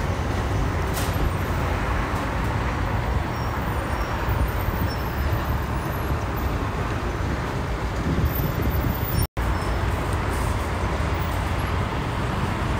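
Steady freeway traffic noise from the engines and tyres of passing cars and trucks. The sound cuts out for an instant about nine seconds in.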